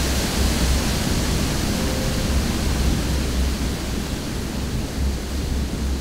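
Wind rushing steadily, with gusts buffeting the microphone in irregular low rumbles.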